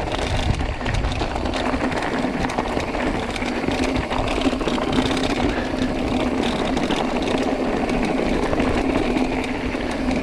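Carbon mountain bike rattling and clattering over a rocky trail at speed on a descent, with tyres crunching over stones and a continuous clatter of small knocks from the frame and components.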